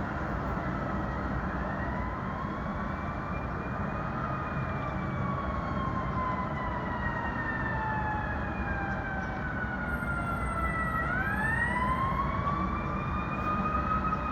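An emergency vehicle's siren wails slowly up and down over the steady noise of city street traffic. Its pitch climbs for a few seconds, falls gradually for several more, then rises again about eleven seconds in.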